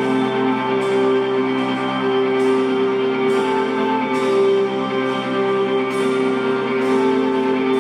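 Live rock band playing: guitars over steady sustained chords that hold a droning tone.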